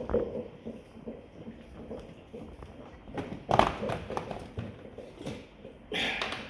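Scattered clicks and knocks of a plastic ride-on toy car's parts being handled during assembly, with one louder knock about three and a half seconds in.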